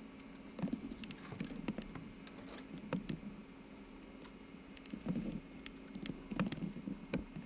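Irregular knocks, clicks and rubbing as things are moved and handled about a small fishing boat, over a faint steady hum.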